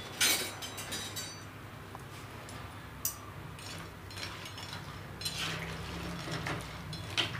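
A metal spoon stirring dried jujubes (ber) with spices and water in a metal kadhai, clinking and scraping against the pan. There are a few sharp clinks, the loudest just after the start.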